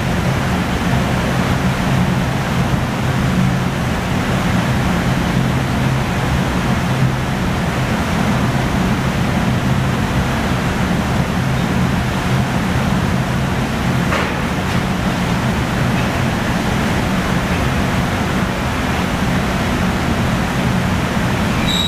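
Steady loud roar of a glass factory's furnaces and fans, with a low hum underneath.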